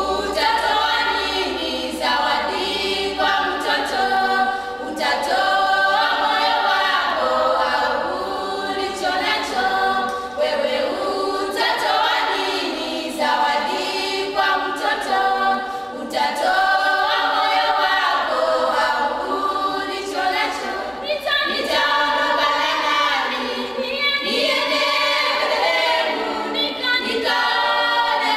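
A choir singing unaccompanied, in a continuous flowing song.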